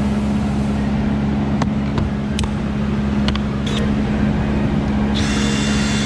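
A steady low hum runs throughout, with a few light clicks. About five seconds in, a cordless drill-driver's motor whines briefly as it backs out a screw holding the car's inner door panel.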